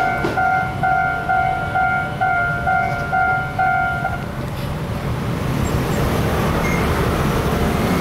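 Level-crossing warning bell ringing a steady two-tone ding about twice a second, which stops about four seconds in once the train has cleared the crossing. After that, a swelling wash of motor-scooter and traffic noise as the waiting scooters set off across the tracks.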